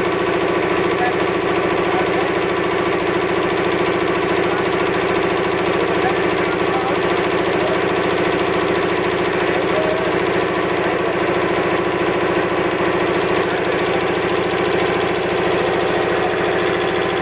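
High-pressure air-cooled piston air compressor running steadily, with a fast, even pulsing from its pistons.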